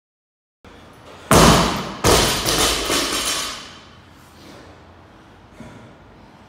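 Loaded barbell with rubber bumper plates dropped from overhead onto rubber gym flooring: a loud bang as it lands, a second bang as it bounces, then a clatter that dies away over about a second and a half.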